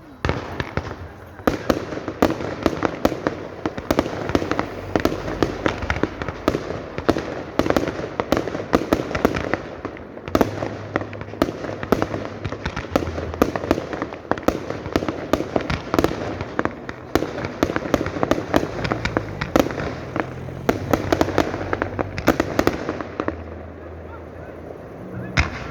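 Fireworks display: rapid, dense volleys of bangs and crackles going off many times a second, thinning out near the end.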